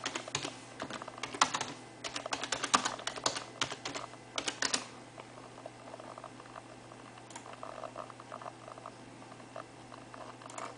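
Typing on a computer keyboard: quick runs of key clicks for about the first five seconds, then only a few scattered clicks.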